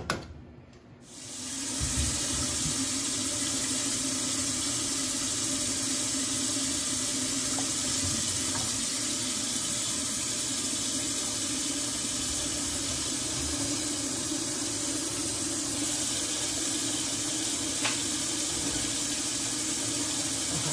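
Kitchen faucet running a steady stream of water into a stainless-steel sink, starting about a second in.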